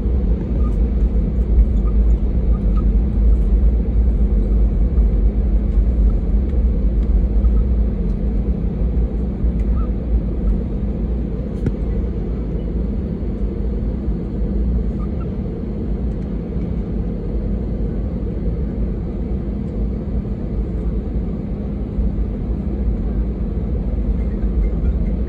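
Cabin noise of an Airbus A320 taxiing: a steady low rumble from the engines at taxi power and the wheels rolling on the taxiway.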